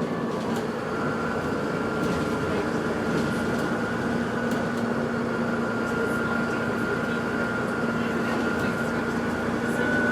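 Steady vehicle running noise, a continuous rumble with a thin, steady high-pitched whine and a lower hum running through it.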